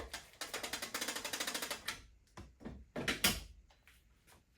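Overhead EV charging cable retractor reel clicking fast and evenly, about ten clicks a second, as the cable is pulled down off it; the clicking stops about two seconds in, followed by a few separate knocks of the cable and clamp being handled.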